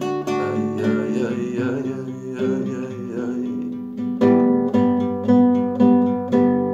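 Nylon-string classical guitar strumming chords. About four seconds in, the strums turn louder and sharper, roughly two a second.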